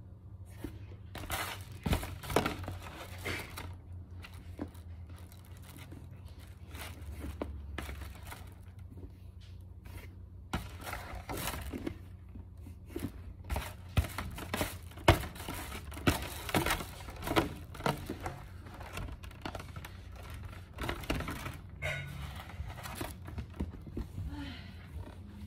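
Irregular crinkling and rustling as a plush toy and its packaging are handled and put away, with a few soft knocks. Busier stretches come about two seconds in, around the middle and again near the end, over a steady low hum.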